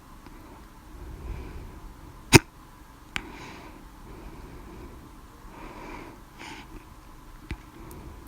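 A loud, sharp hiccup about two seconds in, followed by soft breaths in and out and a couple of much fainter clicks.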